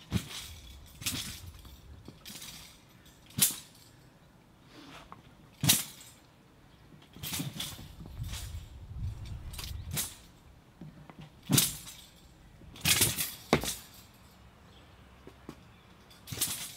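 Swift swishes and snaps from a sword and loose clothing during fast, explosive sword movements: about ten sudden bursts at uneven intervals, two of them much louder than the rest, with soft shuffles of feet between.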